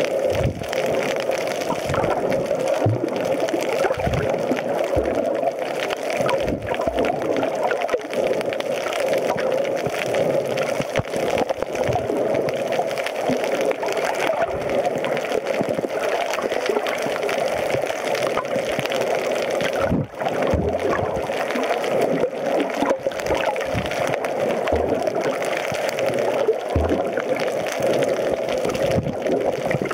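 Steady muffled rush of water picked up underwater, with a few soft low thumps scattered through it.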